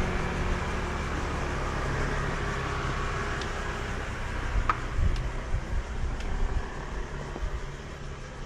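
Road traffic: a motor vehicle's low engine hum that fades over the first few seconds, over a steady traffic noise, with a few light clicks in the middle.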